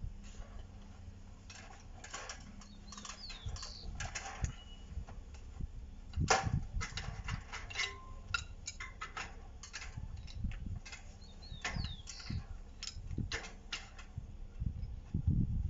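Irregular metallic clicks, knocks and creaks as a steel bar is twisted cold in a bench vise with a Stilson pipe wrench, with one louder knock about six seconds in.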